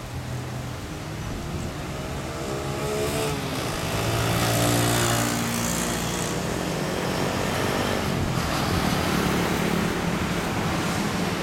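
Road traffic: a passing vehicle's engine rises in pitch and grows louder, peaking about four to five seconds in, over a steady hum of traffic.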